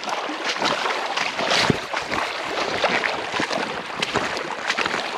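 River water splashing and rushing, with many irregular sloshes and small splashes.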